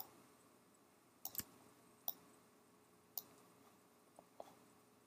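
Faint, scattered computer mouse clicks, about half a dozen at irregular intervals, against near silence.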